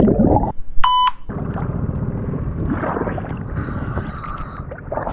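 Water sloshing and muffled underwater noise as the camera dips below the surface, with one short high beep about a second in.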